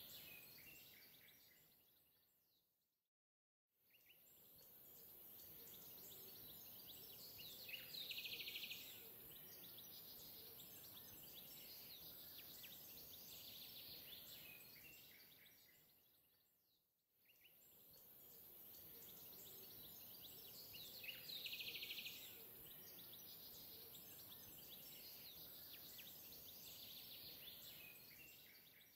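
Faint looped nature ambience of bird chirps over a steady hiss. It fades out and back in about every 13 seconds.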